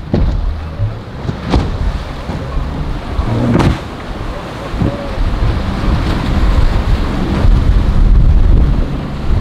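Wind buffeting the microphone over crashing surf and a center-console boat's outboard motors running hard through breaking waves. The hull slams into waves with bursts of spray, the biggest crash about three and a half seconds in.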